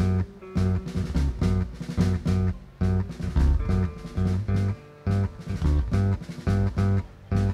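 Live band playing rock: guitar over a drum kit and a heavy low end, in short, punchy accented hits with brief gaps between them.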